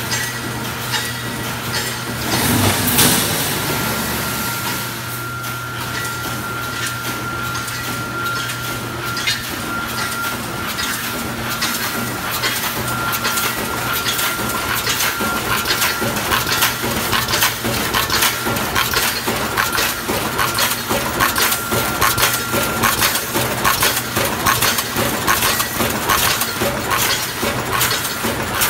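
JK-AW-1200 automatic chicken cage wire mesh welding machine running: a dense, rapid metallic clatter of wire feeding and spot welding, over a steady hum with a faint high whine. A louder clatter comes about three seconds in.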